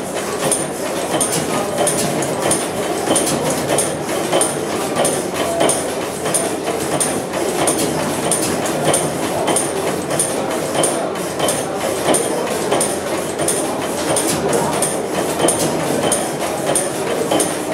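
Deutz type A horizontal crosshead stationary gas engine running: a steady, rhythmic mechanical clatter with a sharp high click repeating a little more than once a second.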